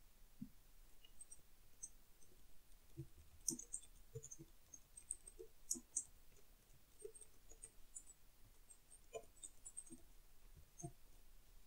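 Faint, irregular clicking of computer keys being typed, with a few louder clicks about three and a half and six seconds in.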